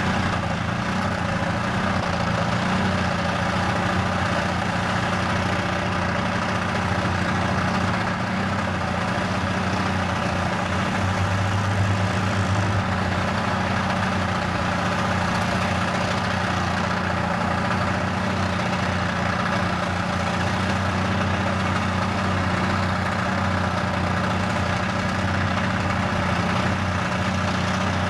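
Holden VN Commodore burnout car's engine held at steady high revs in a stationary burnout, its rear wheels spinning on the track.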